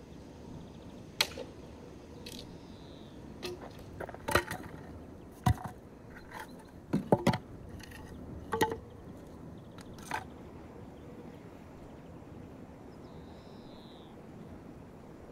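Sharp wooden knocks, about ten of them, as firewood is split with an axe on a chopping block and the split pieces are set down clunking on gravel under an iron stand. The knocks stop about ten seconds in.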